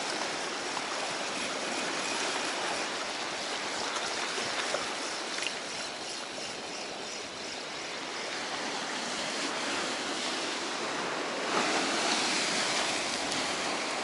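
Stormy sea surf breaking and washing around the pier, a steady rushing noise that swells a little near the end.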